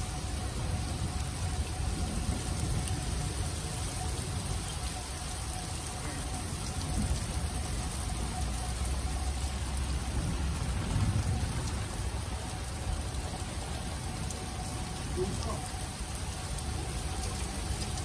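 Steady rain falling, with a low rumble underneath.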